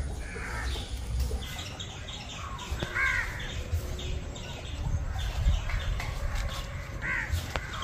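Birds calling, with crow caws standing out, the clearest about three seconds in and again near the end, over a low steady rumble.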